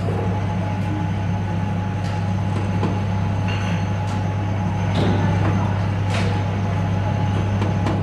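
Assembly shop atmosphere: machinery running with a strong, steady low hum and a thin steady tone above it, with a few short knocks and clicks scattered through.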